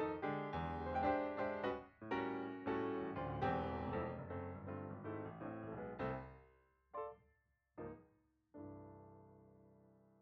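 Background piano music. Flowing notes give way about six seconds in to two short separate notes, then a final chord that rings out and fades away.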